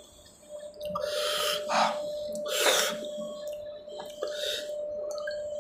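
Mouth sounds of a man eating pani puri: several loud, noisy bursts of crunching, slurping and sharp breathing, with a thin steady tone underneath.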